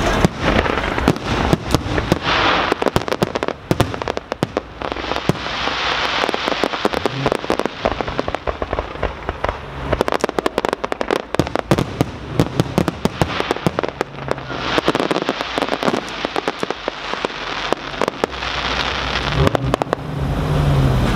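Aerial fireworks display: a rapid, continuous run of bangs and pops from shells bursting overhead. Several times a dense crackling hiss swells up.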